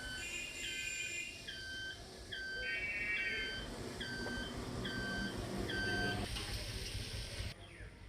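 Background music: a short electronic note repeating about every three-quarters of a second, with brief chords between the notes.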